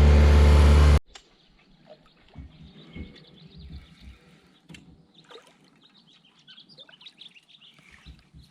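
A boat's motor running steadily, cutting off abruptly about a second in. Faint bird chirps and a few low thumps follow.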